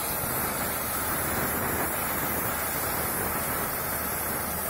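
Oxy-fuel cutting torch on a CNC plate-cutting machine hissing steadily as its oxygen jet cuts through steel plate.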